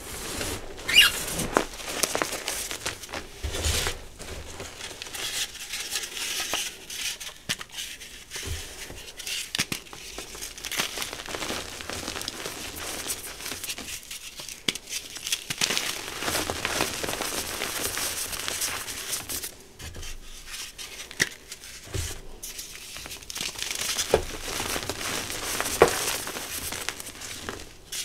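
Hands crumbling and rubbing blocks of reformed gym chalk into powder: dry crunching and gritty rustling, with irregular sharp snaps as pieces break.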